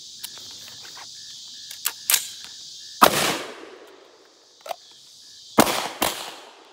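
Handgun shots during a rifle-to-pistol transition: one loud report about three seconds in, then two more about half a second apart near the end, each ringing out briefly. A few lighter sharp clacks come before the shots, over a steady buzz of insects.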